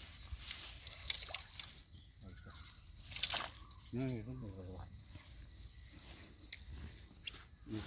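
Steady high-pitched drone of an insect chorus, with a sharp click about three seconds in.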